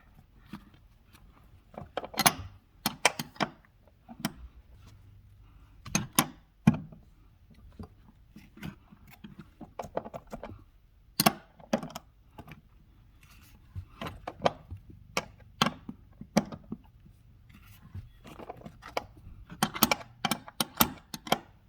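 Scattered metal clinks, rattles and knocks of hands working on a seat belt buckle, its mounting bolt and hand tools, in short clusters with quiet gaps between.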